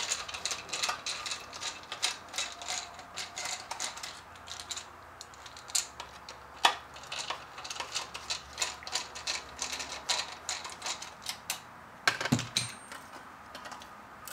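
Hand deburring tool scraping and clicking around a freshly step-drilled hole in an aluminium PCM housing, a rapid, irregular run of sharp scrapes, with a louder clatter of the metal housing about twelve seconds in.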